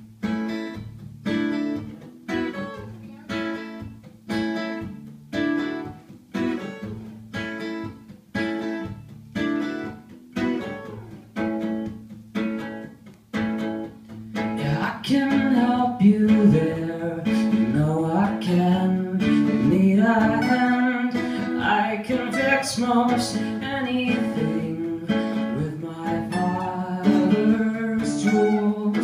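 Two acoustic guitars strumming a steady, even rhythm; about halfway through, a man starts singing over them.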